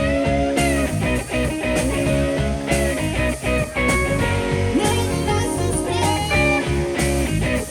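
Live rock band playing an instrumental passage: electric guitar lead with string bends over bass and drums.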